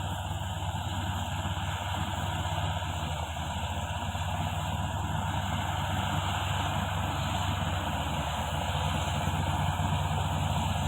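Komatsu D155A-6 bulldozer's diesel engine running steadily with a low drone, a little louder near the end.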